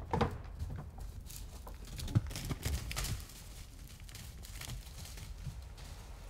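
European bison's hooves thudding irregularly on the forest floor as it steps out of a wooden transport crate and runs off, the heaviest thuds about two to three seconds in.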